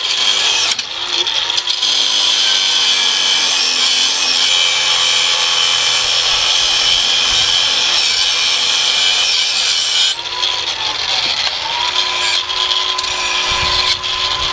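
DeWalt angle grinder with a cut-off wheel cutting through the pushrod of a new air brake chamber to shorten it: a steady high whine over a grinding hiss. About ten seconds in the load eases and the motor briefly speeds back up before the cut goes on.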